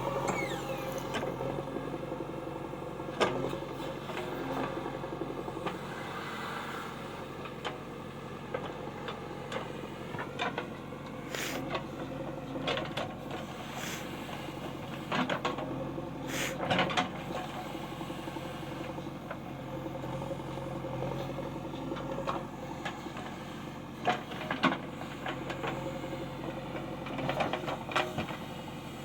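A steady mechanical hum, like a running motor or engine, with scattered sharp clicks and knocks.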